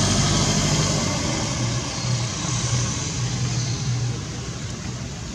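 A motor engine running steadily: a low hum under a broad hiss, growing a little quieter in the last second or so.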